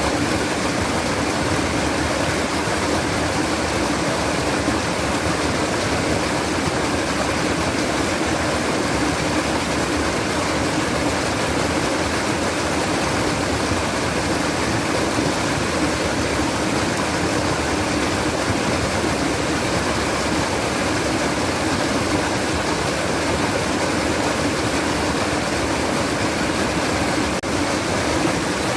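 Water babbling and trickling steadily, a continuous even rush of flowing water.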